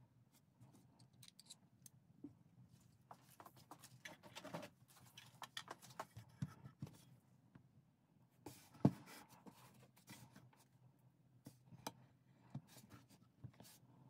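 Faint, scattered clicks, taps and rustles of hands handling small objects on a workbench, with one louder knock about nine seconds in.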